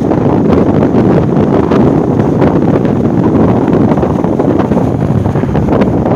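Strong wind buffeting the phone's microphone, a loud, steady rumbling roar that covers everything else.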